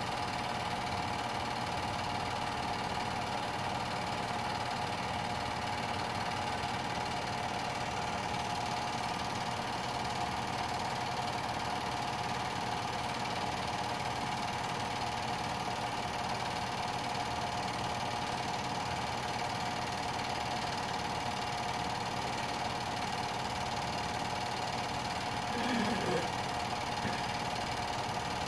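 Film projector running steadily, a continuous mechanical whir with a steady hum. Near the end there is a brief voice-like sound.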